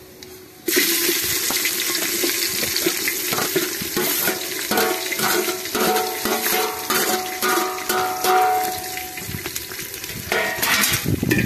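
Sliced onions dropped into hot oil in a metal pot, sizzling loudly from about a second in, with a steel spoon clinking and scraping them off a steel plate. The sizzle dies down shortly before the end.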